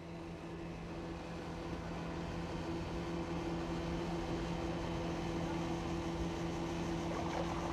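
Small boat's outboard motor running steadily at speed: a constant hum that swells over the first couple of seconds, then holds.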